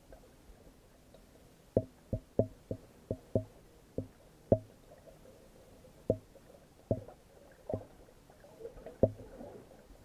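Muffled knocks and thuds, about a dozen at irregular intervals, heard from a camera held underwater beside a kayak. Near the end they give way to a soft gurgling of water.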